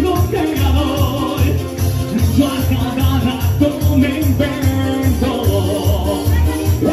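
A male singer performing live into a microphone over backing music with a steady pulsing bass beat, in a Latin style.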